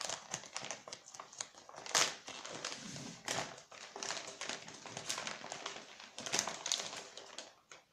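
White padded mailing envelope crinkling and rustling as hands open it and rummage inside, with sharper crackles about two seconds in and again near the end.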